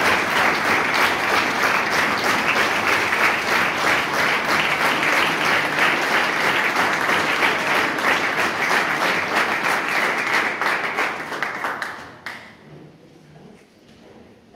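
Audience applauding steadily, thick clapping that dies away quickly about twelve seconds in.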